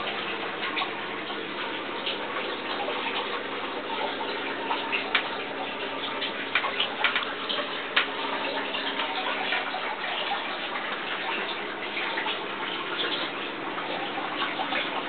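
Water running and dripping in an aquaponic system: a steady trickling rush with irregular sharp drips and splashes scattered through it. A faint steady hum runs underneath.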